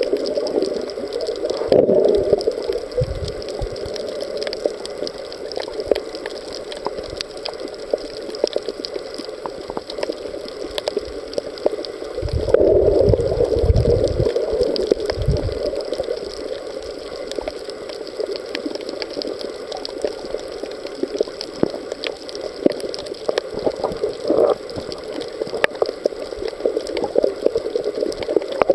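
Underwater ambience heard through a submerged camera: a steady hiss scattered with fine crackling clicks, with swells of low rushing water about two seconds in and again for a few seconds from about twelve seconds.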